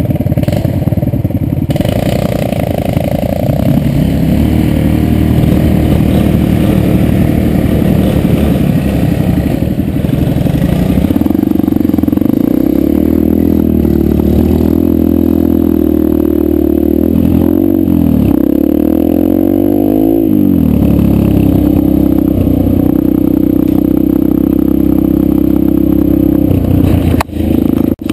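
Yamaha 125 dirt bike engine heard from the rider's helmet, running as the bike rides a dirt trail, its pitch rising and falling several times in the middle with throttle and gear changes.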